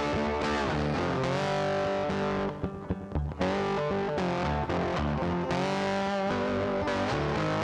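Background rock music with distorted electric guitar and bass, easing off briefly about three seconds in.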